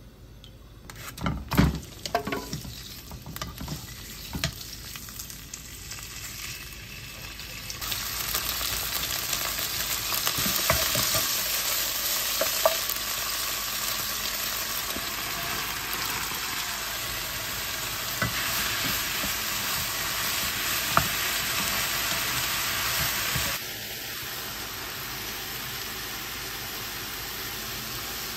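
Diced meat sizzling as it fries in oil in a nonstick wok, stirred with a wooden spoon. A few knocks and clatters come in the first seconds, the sizzle grows louder about eight seconds in, and it drops to a lower level near the end.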